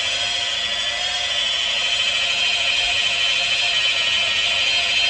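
Handheld power tool running steadily as it buffs a car's plastic headlight lens, a continuous high-pitched whine.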